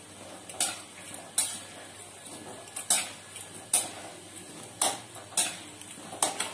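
Slotted steel spatula scraping and clinking against a metal kadhai as it turns gulab jamun frying in oil: about eight sharp clinks at irregular intervals. Under them runs the steady faint sizzle of the dumplings frying on a low flame as they turn golden.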